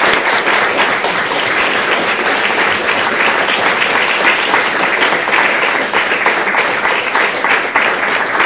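Lecture-hall audience applauding steadily at the end of a talk.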